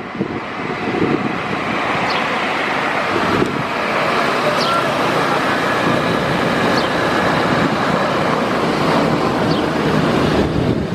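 Steady roar of a Boeing 737-800's jet engines during landing, with wind buffeting the microphone.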